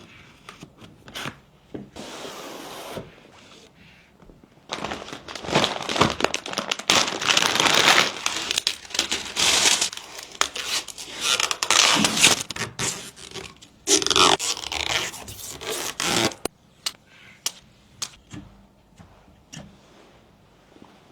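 Scraping and rustling handling noises with many sharp clicks, densest from about five seconds in until about sixteen seconds, then a few scattered clicks.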